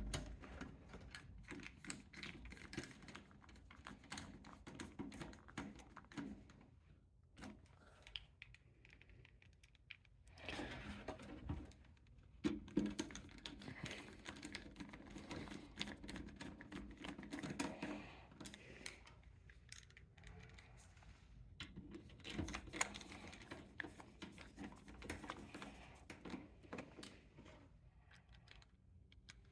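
Faint, irregular small clicks and scrapes of a screwdriver and screws working against a metal PC case as an ATX power supply is screwed into place.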